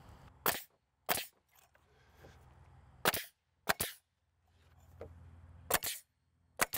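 Pneumatic nail gun driving nails through a wooden fence picket into its backer rails: six sharp cracks in three pairs, the two shots of each pair well under a second apart and the pairs a couple of seconds apart.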